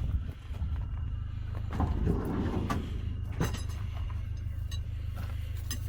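A cordless drill straining against a tight fastener, with a short grinding rattle about two seconds in and scattered clicks and knocks, over a steady low hum. The drill does not have the torque to turn the fastener.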